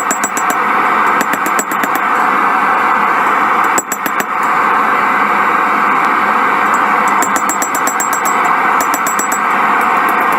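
Steady rushing mechanical noise with faint clusters of rapid high-pitched ticking, which drops out briefly about four seconds in.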